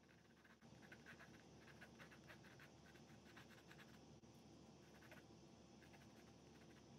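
Faint scratching of a colour pencil drawn over a watercolour-painted canvas in many short, quick strokes.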